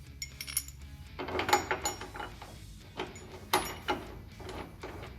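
Metal tools and hardware handled at a truck tailgate: irregular clinks and rattles, loudest about a second and a half in and again around three and a half seconds.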